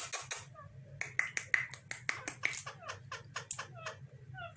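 Pet parrots making a fast run of clicks, then a chattering string of clicks mixed with short falling chirps.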